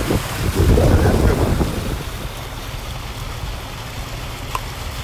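Wind buffeting the microphone over the rush and slosh of floodwater around a car moving through a flooded street. It is loudest in the first two seconds, then settles to a steadier, quieter rush.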